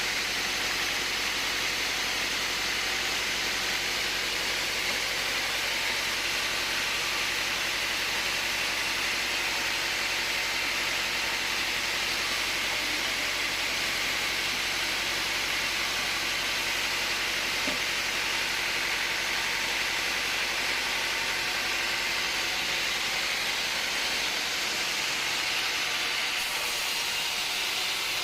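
Steady machine noise: a constant whirring hiss that holds an even level throughout, with no starts, stops or cuts.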